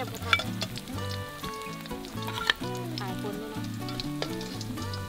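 Pieces of hampala barb deep-frying in hot oil in a wok, sizzling with scattered sharp crackles and clicks as a metal spatula lifts them out. Background music with a bass line plays over it.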